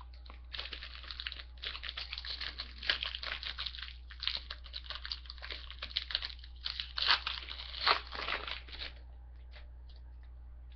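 The wrapper of a 2012-13 Panini basketball card pack being torn open and crinkled by hand: a run of crackling and tearing that stops about nine seconds in.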